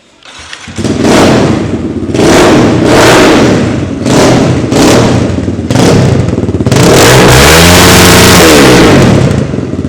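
Dirt bike engine revved hard about six times in quick succession, then held high for about two seconds near the end.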